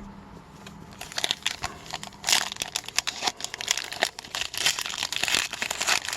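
Wrapper of an Upper Deck hockey card pack crinkling and tearing as it is opened, with a dense crackle starting about a second in.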